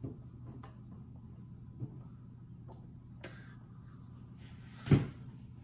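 A low steady hum with a few faint clicks, then one sharp knock about five seconds in.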